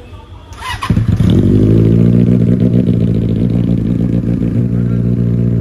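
Benelli TNT 600's inline-four engine being started: a brief starter whir, the engine catching about a second in, then running steadily and loudly through its underseat exhaust.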